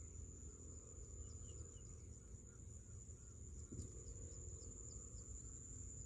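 Faint insect chorus in a field: a steady high-pitched drone with a quicker chirping repeating a few times a second, over a low rumble, and one small click about halfway through.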